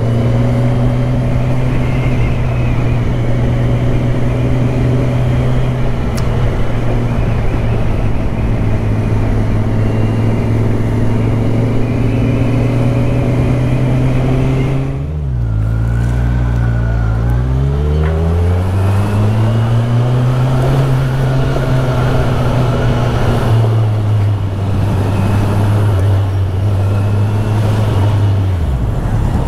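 Kawasaki Z1000SX (Ninja 1000) inline-four engine running at a steady cruise, heard from on the bike. About halfway through, the revs drop and then climb back up. Near the end the steady engine note breaks off.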